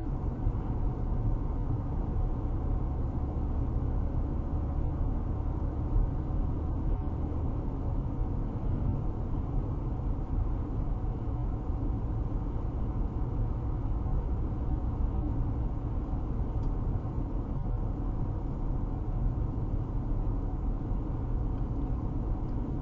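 Steady road noise from a car cruising at highway speed, about 60 mph: a low, even rumble of tyres and engine heard inside the cabin.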